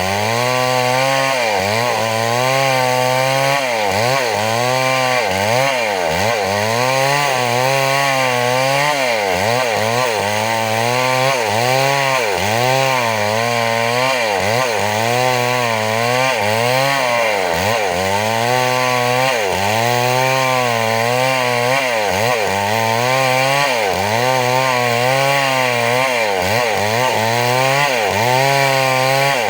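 Chainsaw running at speed, its pitch repeatedly dipping and rising again every second or so as the chain bites and frees, as when cutting through wood.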